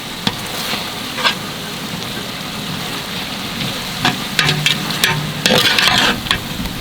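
Onion-tomato masala frying and sizzling in a large pot, with a ladle stirring and scraping against the pot several times from about four seconds in.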